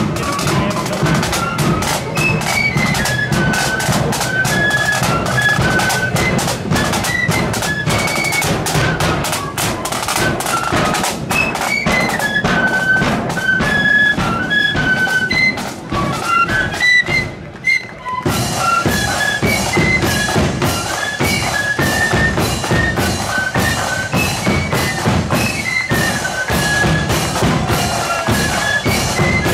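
Marching flute band playing: a melody of quick notes on flutes over snare and bass drums. The drumming drops away briefly about sixteen seconds in and the full band comes back in about two seconds later.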